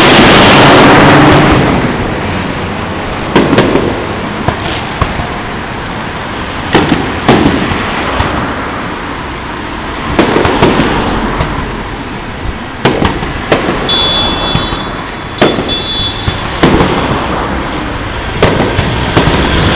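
Aerial fireworks shells bursting some way off: about a dozen sharp bangs at irregular intervals, over steady road traffic. A vehicle drives past close by in the first two seconds.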